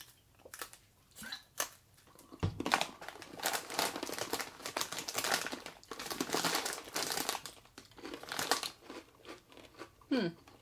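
Plastic snack bag crinkling as it is handled, with irregular crackles that are sparse at first and dense from about two and a half seconds in until about nine seconds.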